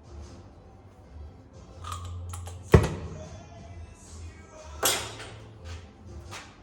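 Background music with a steady low pulse, broken by two sharp knocks: a loud one about three seconds in and another about two seconds later that trails off briefly, with a few fainter scrapes around them.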